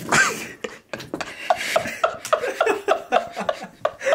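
A brief rushing noise right at the start, then a run of quick, rhythmic laughter.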